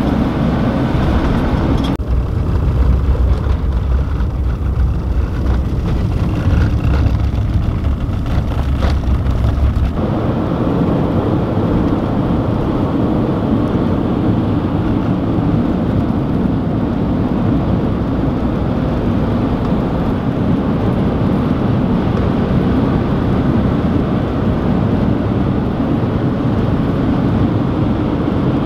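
Steady road and engine noise inside a moving campervan's cab, with a heavy low rumble. The sound changes abruptly about two seconds in and again about ten seconds in, then stays steady.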